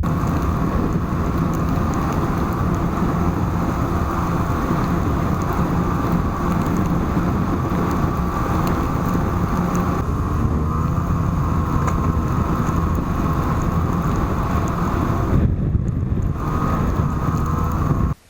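Snowmobile engine running steadily, with wind noise on the microphone; the sound cuts off abruptly near the end.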